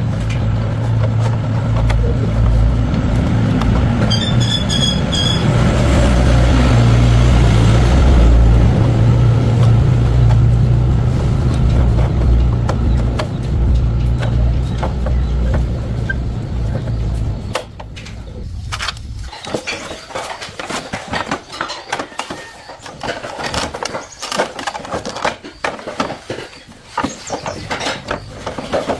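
A Honda 110 motorcycle's single-cylinder engine running steadily. It cuts off suddenly a little over halfway through, and irregular clicks and knocks of work on the bike follow.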